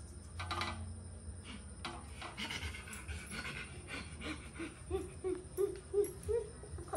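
Rustling of handling and clothing, then from about four seconds a run of short, soft, evenly spaced vocal sounds, about three a second, from a woman cooing rhythmically while cuddling a baby monkey.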